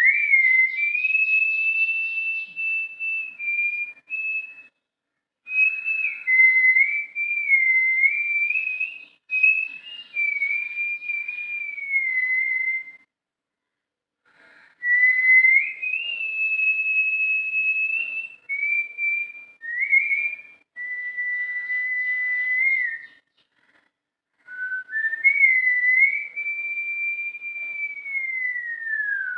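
A man whistling a slow melody with his lips, in long held notes and short phrases, with three brief pauses for breath. Near the end a long held note slides down in pitch.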